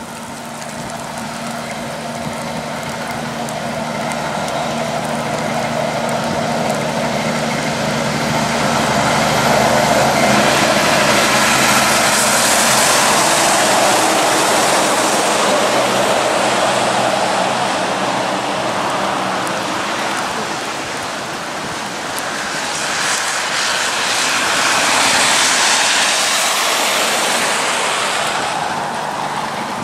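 Heavy diesel road train approaching and passing on a wet highway: engine drone building to a loud pass, with tyres hissing through water, then a second swell of tyre spray near the end as the trailers go by.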